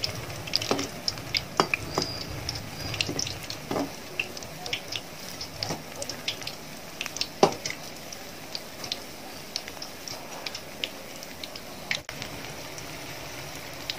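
Pakkavada fritters deep-frying in hot oil in a kadai on medium heat: a steady sizzle with frequent crackling pops. A perforated metal skimmer turns them, adding a few louder knocks against the pan.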